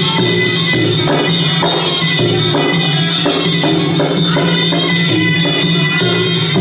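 Traditional Kun Khmer fight music: a reedy oboe-like melody held over drums, with a steady beat of small cymbals.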